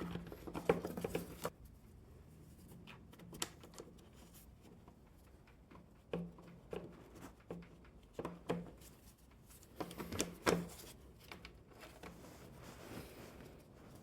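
Scattered light clicks and knocks of hand tools and plastic parts as the plastic intake is fitted back onto a push mower's engine and its fasteners are started.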